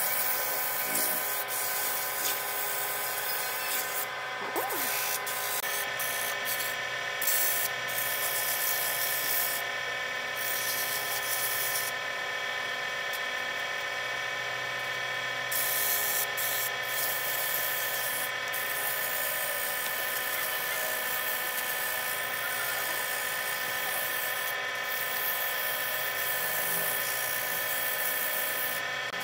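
Wood lathe motor running with a steady whine while sandpaper is held against the spinning wooden spindle, the sanding hiss dropping away briefly a few times as the paper is lifted.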